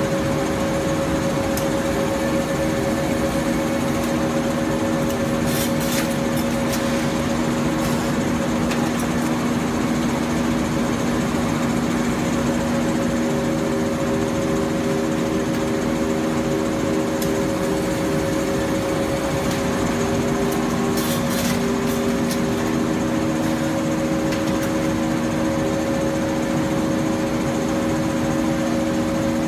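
Cyklop automatic pallet-packaging machinery running with a steady machine hum of several held tones, one of which cuts in and out, and a few short clicks about six seconds in and again around twenty-one seconds.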